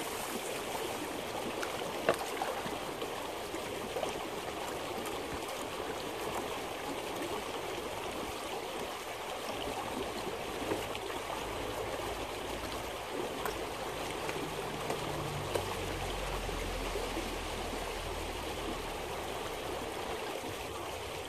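Shallow creek running steadily over stones, with water poured from a gold pan down a sluice into a plastic bucket at the start to rinse the concentrates. A few light knocks, the sharpest about two seconds in.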